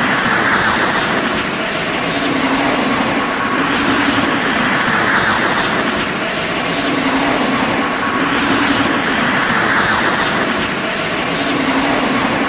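Homemade recreation of the Super Saiyan Rosé aura sound effect: a dense, continuous rushing energy-aura whoosh that swells and eases every few seconds, with sweeping high hiss over a recurring low hum.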